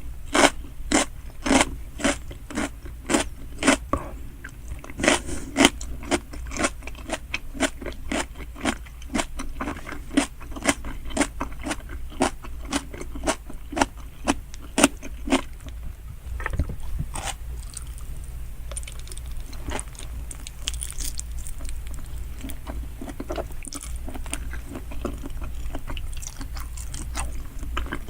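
Close-miked chewing of salmon sushi, with sharp wet mouth clicks about two to three a second through the first half, then softer, more even chewing with only a few clicks.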